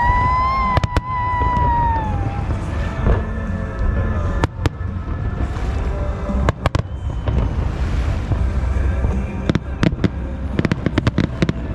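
Fireworks going off: separate sharp bangs over a deep rumble, turning to dense rapid crackling near the end, with music playing along.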